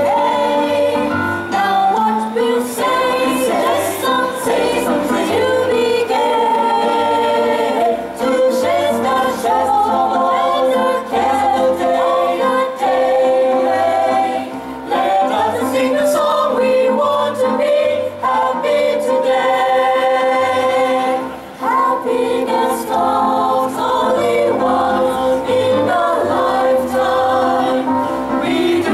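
Mixed choir of men and women singing together in parts, holding long sung notes and chords.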